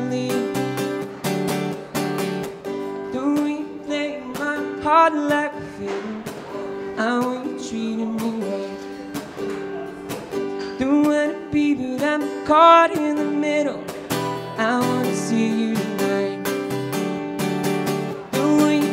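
A man singing a song while strumming chords on an acoustic guitar.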